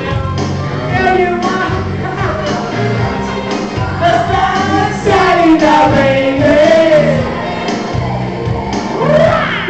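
Amateur karaoke: several people singing together into microphones over a loud backing track.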